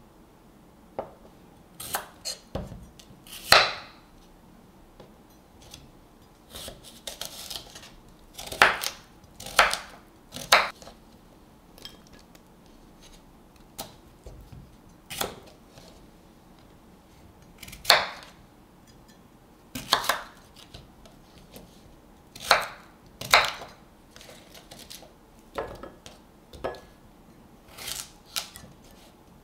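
Kitchen knife slicing a small cucumber on a wooden cutting board: sharp, irregular chops, about one or two a second, some in quick pairs.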